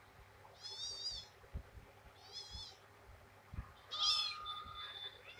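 Three short, high-pitched, wavering calls from a small animal, about a second and a half apart, the last one the loudest.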